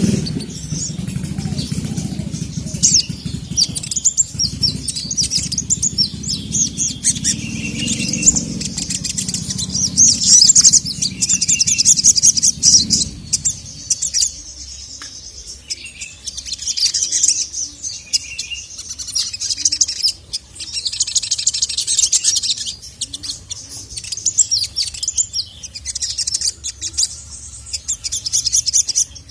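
Sogon (sogok ontong) sunbird singing in rapid, busy twittering phrases, one burst after another with short gaps. A low hum sits under the song for the first half and then stops.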